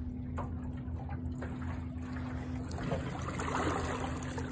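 Minn Kota Endura Max 45 12-volt trolling motor running under way with a steady electric whine, over water splashing and churning from its propeller wash. The splashing grows louder about three seconds in.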